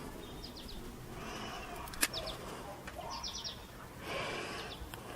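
A bird calling in short runs of three or four quick high chirps, one run near the start and another about three seconds in. A single sharp click comes about two seconds in.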